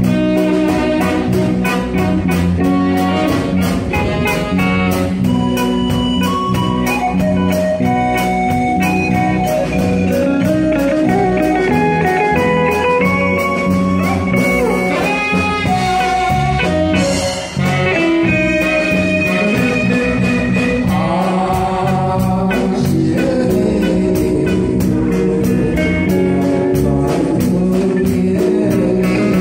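Live band playing a song's instrumental introduction: a drum kit keeps a steady beat under a shifting melodic lead line from the guitar and keyboard, with one brief drop in level about two-thirds of the way through.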